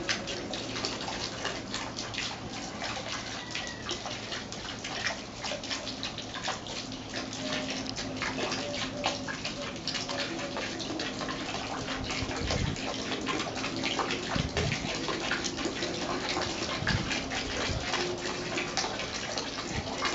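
Small fountain jet in a lily pond splashing back onto the water, a steady patter of falling droplets. A few low thumps come in the second half.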